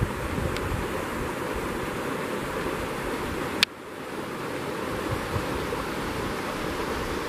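Water rushing steadily over the rocks of a shallow, rocky stream. A click a little past halfway, after which the rushing drops suddenly and builds back over a second or two.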